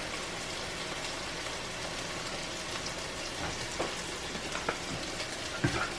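Melted butter, garlic and heavy cream sizzling steadily in a pan, an even hiss, with a few light clicks in the second half.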